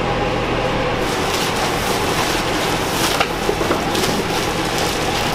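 Steady fan-like rush of air-moving equipment running. From about a second in, it is joined by the rustling and crinkling of bedsheets being stuffed into a black plastic trash bag.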